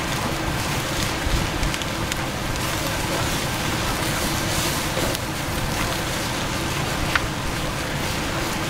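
Fried rice sizzling steadily in a hot wok while a wooden spoon stirs and scrapes through it, with a few light taps of the spoon against the pan.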